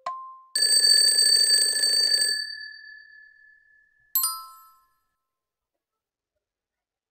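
Quiz countdown timer sound effects: a last tick of an alternating two-tone tick-tock, then an alarm bell ringing for about two seconds as time runs out, then a single bright chime about four seconds in as the answer is revealed.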